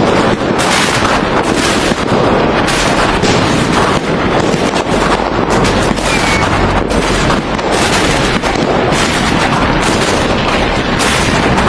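A dense, unbroken barrage of fireworks: many bangs and crackles overlapping, with no pause between them.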